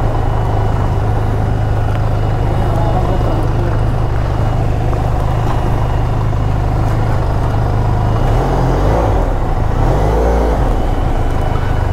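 Benelli TRK 502's parallel-twin engine running steadily at low revs, with road and wind noise. A short wavering tone sounds briefly about nine seconds in.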